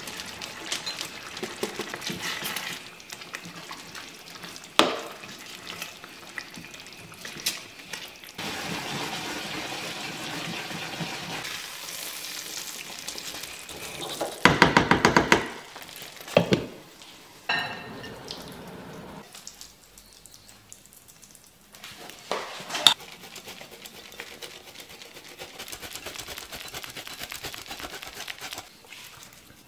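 Rice dish sizzling in a frying pan, stirred with a wooden spatula, with sharp knocks and scrapes of the utensil against the pan and a loud rattling burst about halfway through. Near the end, a block of cheese rubbed on a hand grater.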